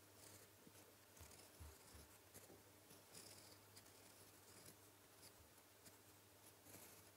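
Fountain pen nib scratching faintly across paper, writing Korean handwriting in a run of short strokes, with a few soft low taps in the first couple of seconds.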